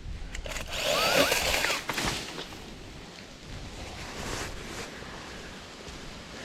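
Cordless 20-volt mini chainsaw cutting a tree limb for about a second and a half, its motor pitch wavering as it bogs under load on a battery that is running low, followed by low rustling of branches and leaves.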